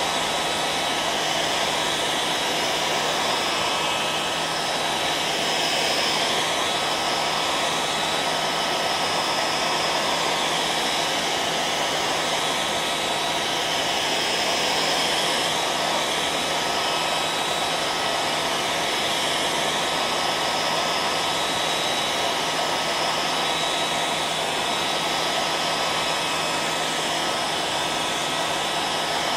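Hair dryer running continuously: a steady blowing rush of air with a constant motor hum and a few fixed whining tones, unchanging throughout.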